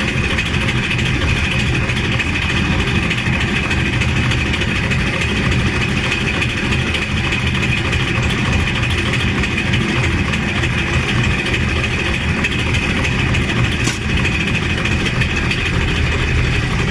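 Nissan TD27 four-cylinder diesel engine idling steadily, with a steady high-pitched whine over the engine note. There is a single brief click about 14 seconds in.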